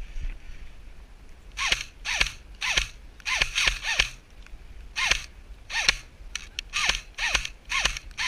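Airsoft replica firing a string of single shots, each a short sharp mechanical crack, irregularly spaced about half a second to a second apart, starting about a second and a half in.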